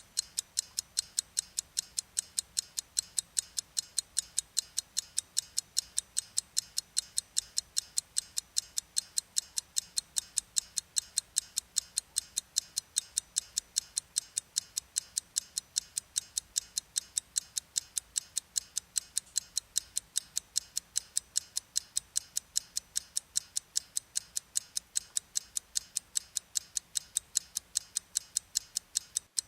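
Stopwatch ticking, a rapid, even run of sharp ticks, a few a second, without a break.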